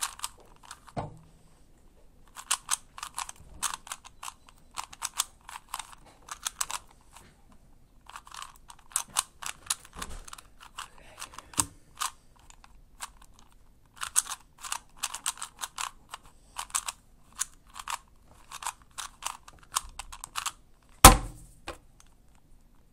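Plastic 3x3x3 Rubik's Cube being turned fast in the hands: its layers click and clatter in rapid runs with short pauses between them. A single louder knock comes near the end.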